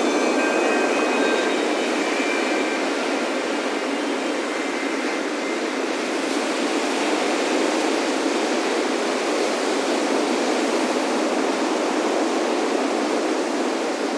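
Ocean surf washing steadily onto a beach, with a few soft wind chime tones ringing in the first few seconds.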